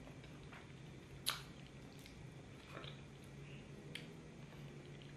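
Faint wet mouth sounds of people eating soft durian flesh by hand: a few scattered lip smacks and sucking clicks, the sharpest about a second in, over a low steady hum.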